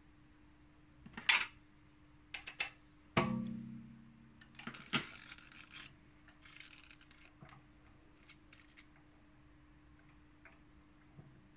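Metal tooling handled on a stopped metal lathe: a few sharp clicks and taps, then a loud metallic clank a little after three seconds in that rings on for about a second, then another click, some scraping and faint ticks.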